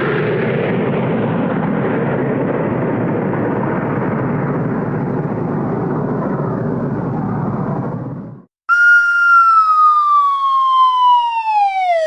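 A steady rushing noise for about eight seconds that cuts off, then a loud cartoon falling-whistle sound effect: one clear whistle tone that glides slowly downward for about three seconds and then dips faster.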